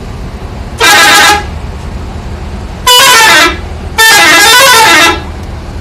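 Bus telolet horn, a multi-tone musical horn, sounding three loud blasts: a short one about a second in, another about three seconds in, then a longer one whose pitch wavers in a little tune. A low steady rumble runs underneath.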